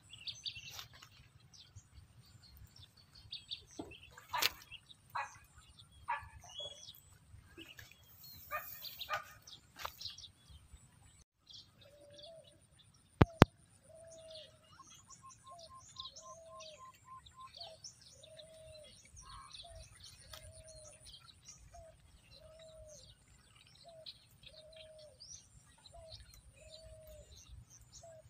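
Faint birdsong: scattered short chirps and calls. Later a bird repeats a short hooting note a little more than a second apart, and two sharp clicks come just before it starts.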